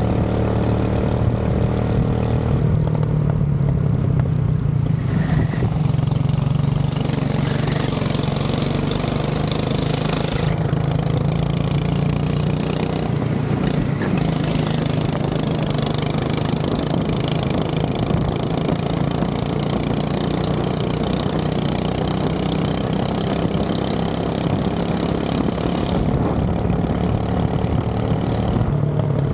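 Go-kart engine running at a fairly steady pitch.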